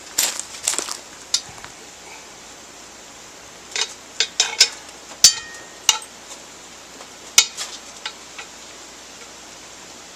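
Metal utensil clinking and scraping against a Dutch oven in irregular knocks, one strike ringing briefly, as hamburger is worked in the pot for browning.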